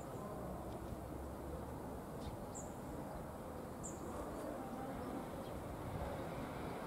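Classic electromechanical level-crossing bell ringing rapidly and without a break, warning that a train is coming. A small bird chirps a few times over it.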